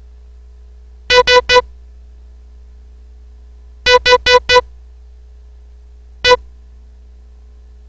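Morse code sent as short, evenly pitched electronic beeps. There are three dits, then four dits, then one dit: S, H, E, spelling the word "SHE" as a decoding drill for the dot-group letters.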